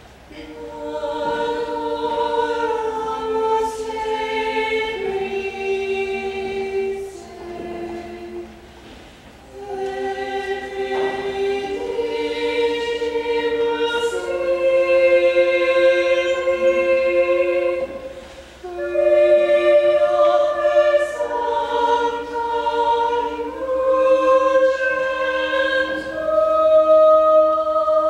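A small choir sings a Latin sacred piece in several-part harmony. The notes are long and held, sung in phrases, with short breaks about nine seconds in and again after eighteen seconds.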